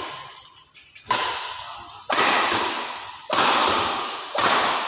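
Badminton rackets striking a shuttlecock in a rally: four sharp cracks about a second apart, each trailing off with echo in the hall.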